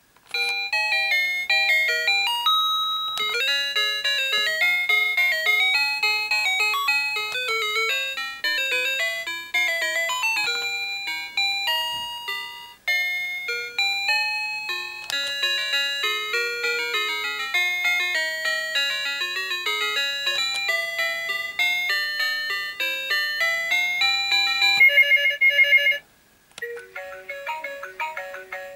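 Toy baby mobile phone playing an electronic melody set off by a button press, a long run of quick bright notes. Near the end it breaks into a fast warbling ring, stops briefly, and another short electronic tune starts.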